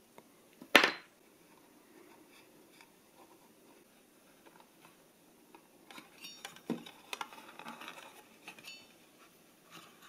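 A single sharp metallic clink about a second in as the tweezers are put down. Several seconds later comes a run of small clicks and light plastic rustling as fingers press a thin wire into a 3D-printed PLA case.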